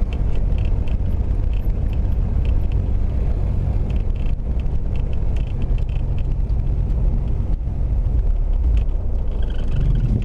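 Beechcraft Bonanza's flat-six piston engine idling at low rpm, its propeller turning slowly, as a steady low rumble heard from inside the cockpit.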